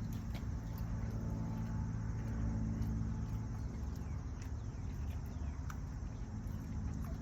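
Outdoor background: a steady low rumble with scattered short bird chirps, some falling in pitch.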